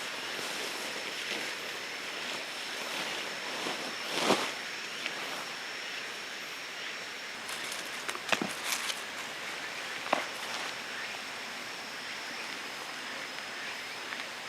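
Outdoor ambience with a steady high-pitched tone and a soft background hiss, broken by a few sharp knocks: one about four seconds in, a quick cluster just past the halfway point, and one more shortly after.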